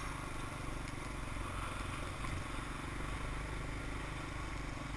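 Motorcycle engine running steadily at low road speed, with road and wind noise.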